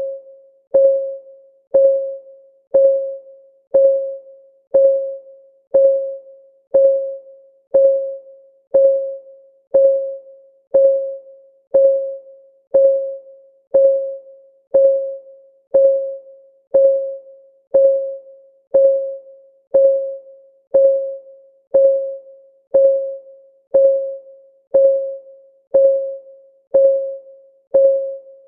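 Countdown timer's clock-ticking sound effect, one tick a second. Each tick is a short pitched click that rings briefly and fades before the next.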